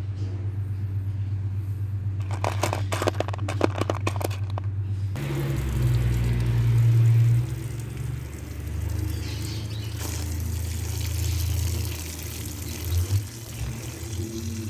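Water pouring and running, heard from about five seconds in after a sudden change in the sound, over a shifting low rumble. Before it, a steady low hum with a quick run of clicks and knocks.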